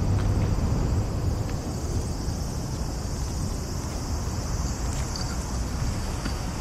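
Steady outdoor background noise: a low rumble, a little louder in the first second, under a constant high-pitched hiss.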